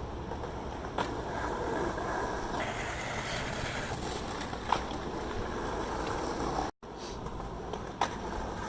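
Skateboard on pavement: steady rolling and street noise, with three sharp clacks of the board about a second in, near the middle and near the end.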